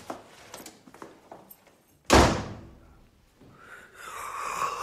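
A door slams shut about two seconds in, after a few faint knocks and shuffles. Near the end a man's long, breathy yawn begins and grows louder.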